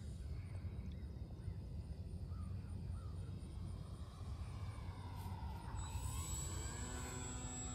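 Electric motor and propeller of an E-flite Stearman PT-17 radio-controlled biplane running as it flies past low, its pitch falling after it passes about six seconds in, over a steady low rumble. A few short bird calls about two and a half seconds in.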